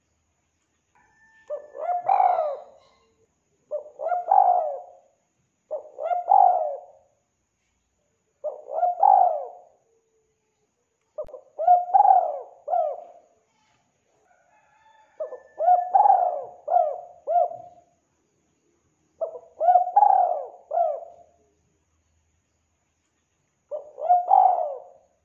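Spotted dove cooing: about eight phrases in turn, each a quick run of several hoarse coo notes, separated by short pauses of one to two seconds.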